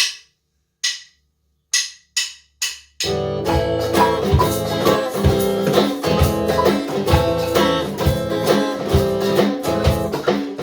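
Instrumental intro of a song. Five sharp clicks count in, then about three seconds in the band comes in with guitar and a steady drum beat.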